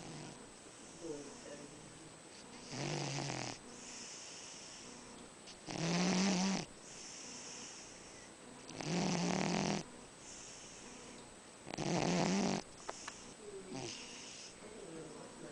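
Sleeping cat snoring: four loud snores about three seconds apart, each lasting about a second, with quieter, airy breaths in between.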